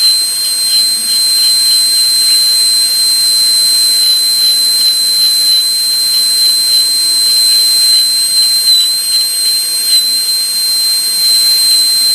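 High-speed air-turbine dental handpiece with a 330 bur, running as a steady high whistle over air hiss while cutting the tooth to connect the cavity's pits. Its pitch dips briefly twice near the end as the bur takes more load.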